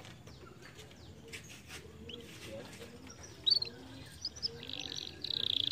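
Canary singing: scattered short chirps and whistles, then a fast, buzzy trill that starts near the end and grows louder.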